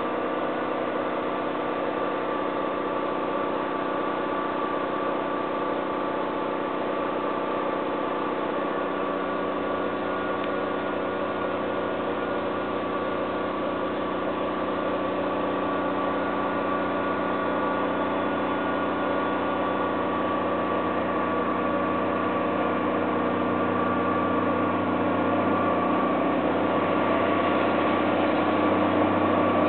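Diesel locomotive engine running steadily at low revs with a held hum, growing gradually louder over the last third as the train draws closer.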